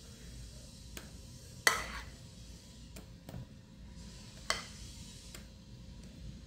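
A spoon clinking and scraping against a glass mixing bowl as thick whipped ice-cream mixture is scooped out into a plastic tub. There are about six sharp clinks, the loudest about one and a half seconds in and another a little after four seconds, each ringing briefly.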